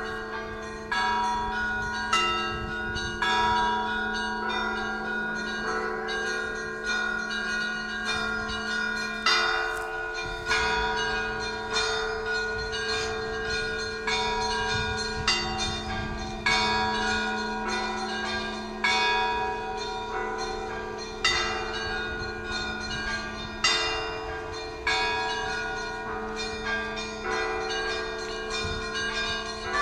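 Russian Orthodox church bells rung by one bell-ringer. Smaller bells are struck in a quick, busy pattern, with heavier strikes every second or two, and a deep bell tone rings on underneath throughout.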